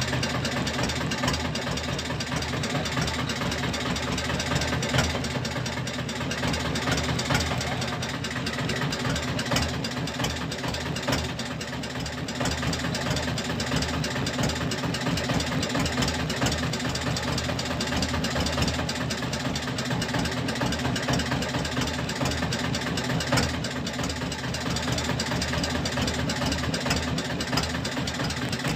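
Boat engine idling steadily, a continuous low drone with a fast, even pulse.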